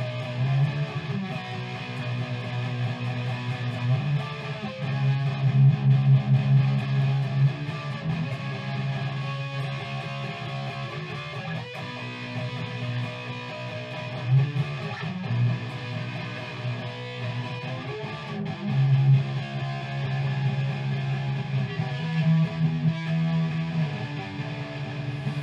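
Background music: a guitar-driven track with strummed electric guitar over a bass line.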